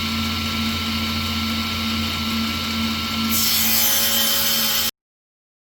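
Table saw running with a steady hum and a thin whine; about three seconds in a board is fed into the blade and the sound turns brighter and louder with the hiss of the rip cut. The sound cuts off suddenly near the end.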